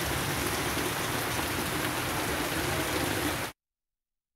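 Heavy rain falling steadily, a dense even hiss, that cuts off abruptly about three and a half seconds in, leaving dead silence.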